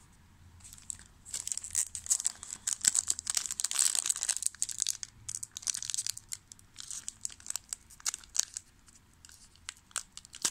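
A foil trading-card pack wrapper being torn open and crinkled by hand. The crinkling is dense for the first few seconds, then breaks into scattered crackles.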